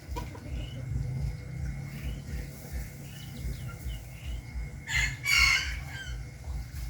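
Bird calls: soft short chirps throughout, then one loud, harsh call about five seconds in, over a low, rhythmic pulsing.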